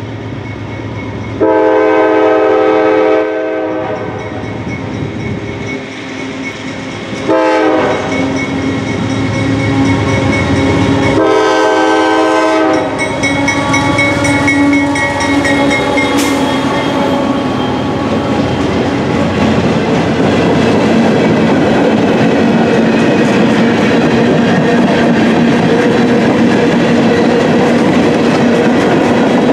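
CSX GE AC44CW diesel-electric locomotive sounding its horn for a grade crossing: a long blast, a short one, then another long one. The locomotive's 16-cylinder diesel then passes close by, followed by the steady rumble and clickety-clack of the coil steel cars rolling past.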